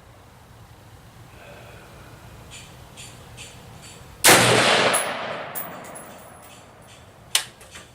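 A single 5.56 rifle shot from a DPMS Oracle AR-15 about four seconds in, a sudden loud report that dies away over about a second. A shorter, quieter sharp crack follows near the end.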